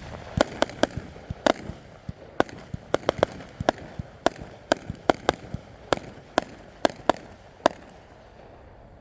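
A 64-shot consumer fireworks finale cake firing, a rapid, irregular string of sharp reports, sometimes two or three in quick succession, that stops near the end.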